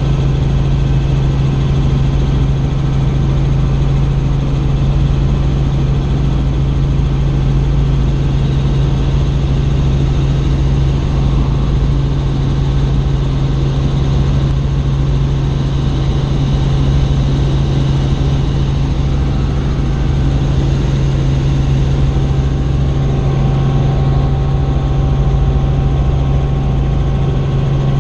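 Steady drone of a helicopter's engine and rotors in flight, with a strong low hum that stays even and unbroken.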